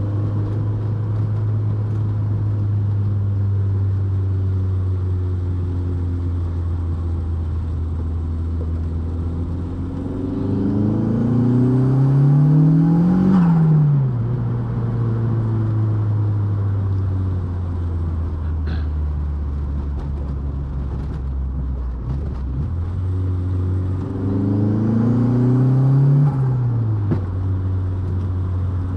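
Turbocharged 1.8T 20-valve four-cylinder of a Mk2 Golf driving at a steady engine note, then twice accelerating hard, about ten seconds in and again near the end. Each time the engine note climbs for about three seconds with a faint rising turbo whistle above it, then drops sharply as the throttle closes.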